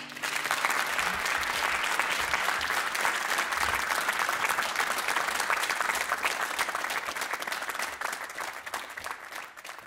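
Studio audience applauding, a dense steady clapping that starts as the music stops and dies away near the end.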